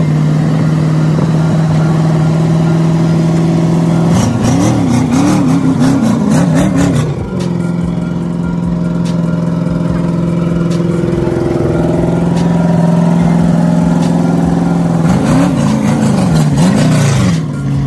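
Chevrolet Corvette V8 engine running at a steady idle, revved in a quick series of rising-and-falling throttle blips about four seconds in, and again near the end.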